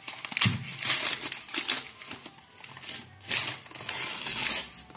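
Paper gift wrapping being torn and crumpled by hand, in irregular bursts of rustling, loudest about half a second in and again from about three seconds in.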